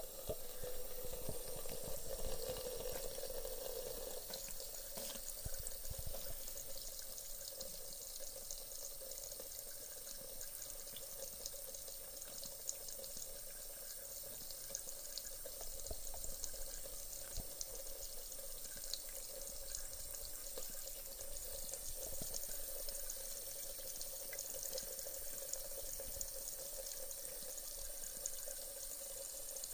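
Thin stream of tap water running steadily from a faucet into a ceramic sink basin, a little louder in the first few seconds.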